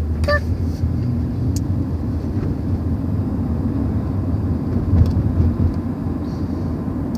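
Steady low road rumble inside the cabin of a moving car.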